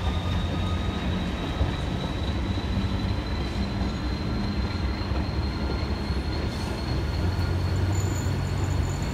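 Passenger train cars rolling slowly past, their wheels on the rails giving a steady low rumble with a thin, high squeal above it that creeps slightly up in pitch.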